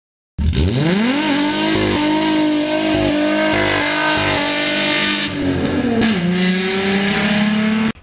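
Car engine revving: it climbs steeply as the sound starts and holds high revs for several seconds. About three-quarters of the way through it drops back, then holds a lower, slowly rising pitch before cutting off suddenly.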